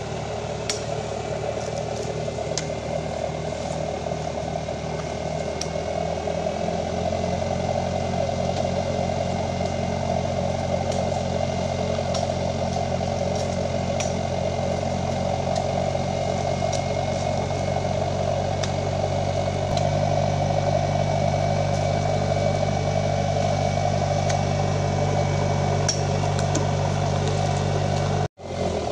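Diesel pickup's engine running at a raised idle, its note stepping up about six and a half seconds in and getting louder again about twenty seconds in. The driver keeps it revved because, as he explains, air in the fuel stops the diesel from drawing fuel and it loses power at plain idle.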